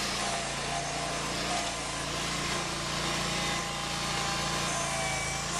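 Small John Deere garden tractor's engine running steadily while it works a front-end loader, with a faint thin whine above the engine note.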